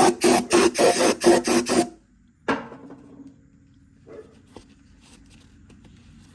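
Brisk back-and-forth rasping strokes of a hand tool scrubbing the cast-iron deck of a Farmall C engine block clean, about four strokes a second, stopping about two seconds in. A sharp knock follows, like a tool set down on metal, then a few faint knocks.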